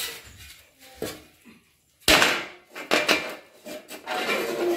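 Metal grill stand knocking on a tiled floor and rubbing as it is wiped with a cloth: a sharp clank about two seconds in, the loudest sound, then irregular scraping and knocking.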